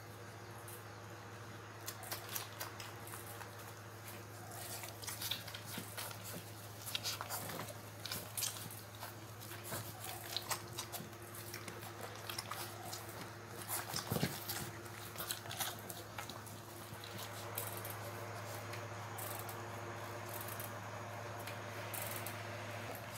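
Puppies jostling and mouthing on a hard concrete floor: scattered quick clicks and scratches of claws and teeth over a steady low hum.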